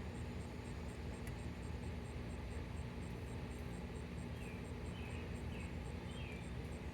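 An insect, cricket-like, chirping in a high, even pulse of about four chirps a second over a steady low background rumble. A few faint short bird chirps come in the second half.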